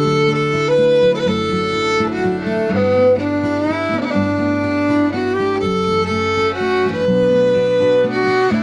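Background music led by a fiddle playing a slow melody over a steady accompaniment, with a sliding note about halfway through.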